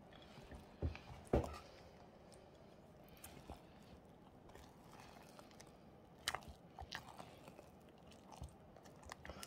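Spatula stirring chopped Snickers bars into a thick cream-cheese cheesecake filling in a glass bowl: faint wet scraping, with a few short sharp clicks of the spatula against the bowl, the loudest about one and a half seconds in and about six seconds in.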